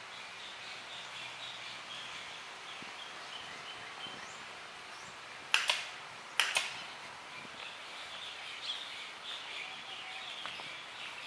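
Birds chirping over steady background noise, with two sharp clicks about a second apart a little past the middle.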